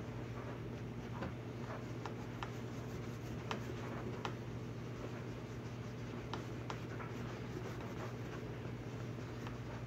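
A cloth rag rubbing and wiping metal polish off a steel knife blade: a scratchy rubbing with scattered light clicks, over a steady low hum.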